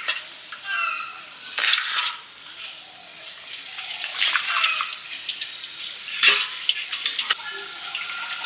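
Water splashing and sloshing in a pot or basin, with a few sharp clanks of metal vessels.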